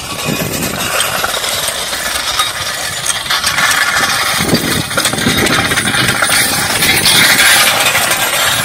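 A machine clattering and rattling steadily, growing louder toward the end.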